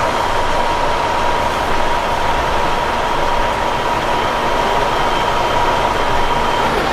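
A steady running engine or motor with a constant high whine over it; the whine cuts off just before the end.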